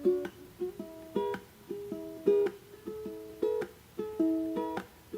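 Background music: a plucked string instrument playing a gentle melody of single notes, a few a second, each ringing and fading.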